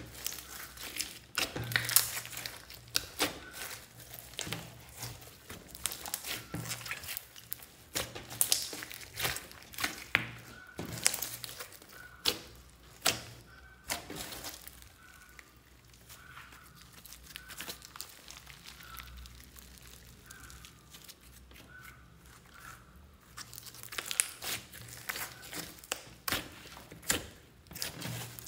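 Slime full of small foam beads being kneaded, stretched and squeezed by hand: irregular squelches, pops and crackles, quieter for several seconds in the middle.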